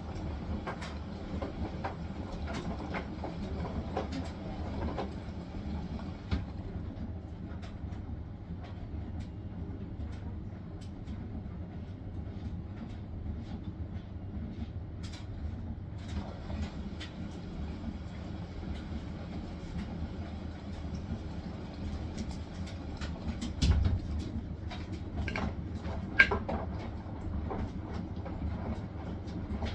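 Hisense washing machine spinning: a steady low rumble from the drum, with scattered clicks and rattles. A heavier knock comes about 24 seconds in, and a sharp click about two seconds later.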